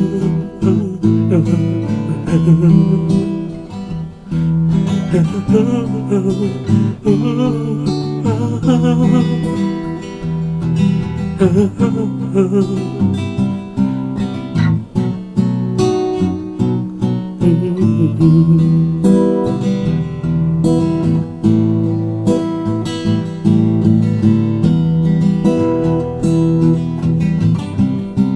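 Acoustic guitar playing the instrumental opening of a song, chords and single notes following one another without a break.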